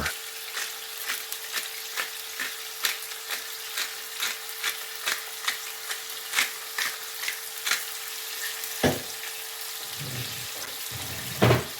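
Chicken strips and onion frying in hot oil in a frying pan: a steady sizzle with frequent sharp crackles and pops. A single louder knock comes about nine seconds in.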